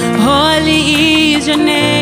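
Slow worship music: sustained chords over a held bass note, with a melody line sung or played with vibrato on top. The bass note changes near the end.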